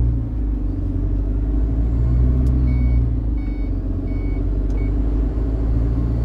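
Diesel engine of an Iveco Eurocargo lorry running on the road, heard from inside the cab as a steady low rumble. About two and a half seconds in, four short high-pitched beeps sound a little under a second apart.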